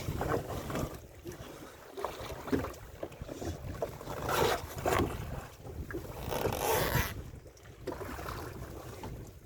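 Wind blowing on the microphone aboard a small fishing boat at sea, over a steady low rumble. There are louder rushes of noise about halfway through and again about two-thirds of the way in.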